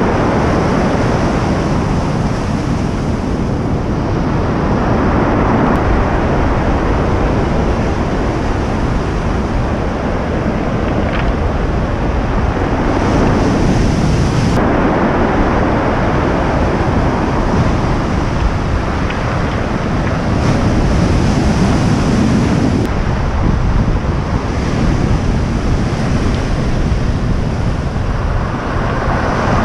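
Heavy sea surf breaking and washing up a cobble beach, with wind buffeting the microphone.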